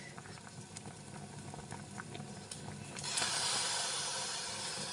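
A pot of water with ginger and cloves at a full boil on a gas burner, bubbling with scattered small pops. From about three seconds in a louder, steady hiss sets in as the pot boils over onto the burner.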